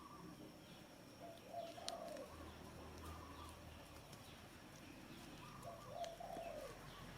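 A dove cooing faintly: two similar phrases about four seconds apart, each a short run of notes that rise and fall in pitch.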